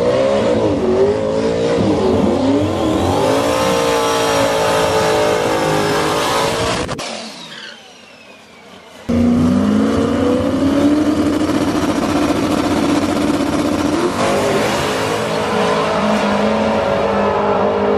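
Drag race car engines revving hard and accelerating, the pitch sweeping up and down. The sound drops away briefly about seven seconds in, then comes back as an engine pulling with a slowly rising pitch that steps up about fourteen seconds in.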